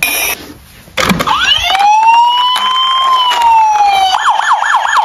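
Tonka toy police car's electronic siren starting after a click: a wail that rises and holds, then switches near the end to a fast yelp of about five sweeps a second.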